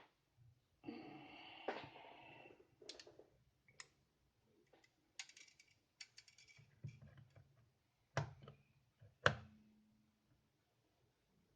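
Irregular clicks and light knocks of small clock parts and tools being handled, with a rustle about a second in and sharper knocks near eight and nine seconds in, the second the loudest.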